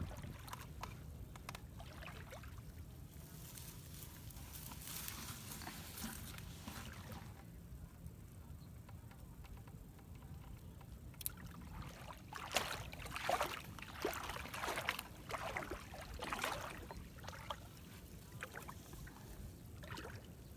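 Grass and weeds rustling and crackling as they are pushed aside and handled, in irregular bursts with a few sharp clicks.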